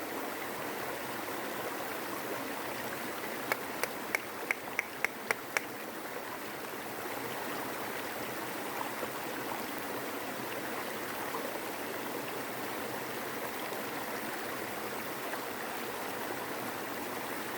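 Steady rushing of flowing water, like a stream. A quick run of about seven sharp clicks sounds between roughly three and a half and five and a half seconds in.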